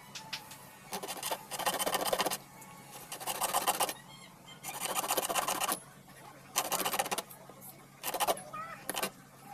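Hacksaw blade rasping inside a brass fan-motor bushing in repeated scraping strokes, each burst lasting about a second with short pauses between. The bushing is being opened up because it grips the new shaft too tightly, with no clearance.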